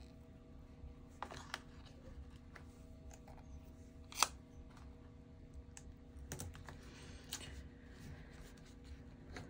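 Faint taps, clicks and paper rustles of hands setting a small round magnet on a kraft-paper page and pressing a strip of tape over it, with one sharp click about four seconds in. A faint steady hum runs underneath.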